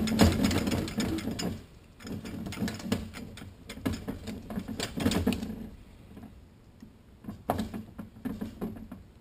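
Toyota A340 automatic transmission clutch drum being twisted back and forth by hand so its splines work down into the direct clutch discs: quick runs of metal rattling and clicking in two spurts, then a few single clicks near the end.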